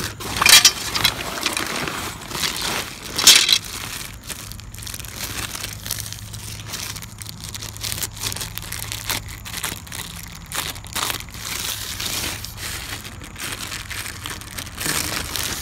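Clear plastic packaging crinkling and crackling as it is handled, with loud bursts about half a second and three seconds in.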